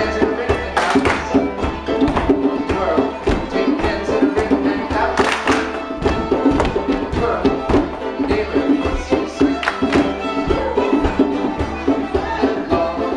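Contra dance music from a live folk band: a lively traditional tune with a steady, driving beat.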